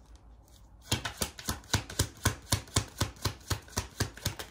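A deck of reading cards being shuffled by hand: a quick, even run of sharp card slaps, about six or seven a second, starting about a second in and stopping just before the end.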